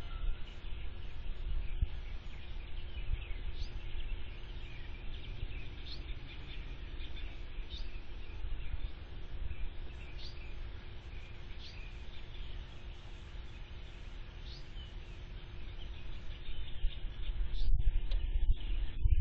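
Birds chirping briefly every second or two over a low rumble and a faint steady hum; the rumble grows louder near the end.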